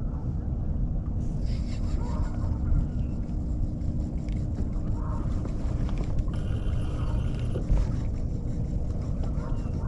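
Boat motor running steadily: a low rumble with a steady hum.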